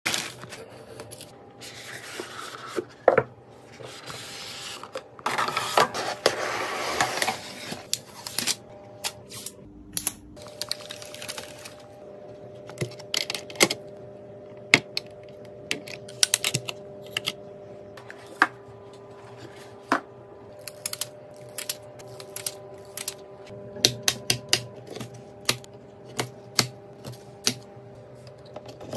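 A plastic bag crinkling as a boxed processor is handled and unwrapped for the first several seconds. Then many sharp, irregular clicks and taps of computer parts being fitted by hand: a processor set into its motherboard socket and memory sticks pushed into their slots.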